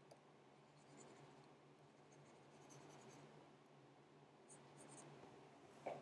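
Faint scratching of a stylus pen on a drawing tablet, over a steady low electrical hum.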